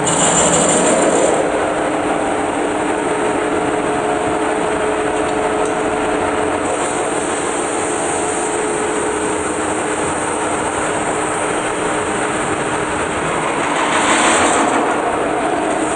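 Large metal-spinning lathe turning a big sheet-metal dish while a hand-levered tool is pressed against it: a steady mechanical hum with a couple of held tones under a dense rasping noise. The sound swells louder and brighter at the start and again near the end.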